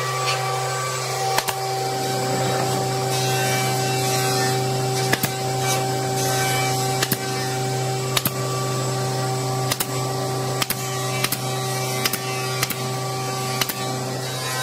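A JOK pneumatic brad nailer firing about ten times at irregular intervals, more often in the second half, as nails are driven into the joints of a wooden box frame. A steady mechanical hum runs underneath.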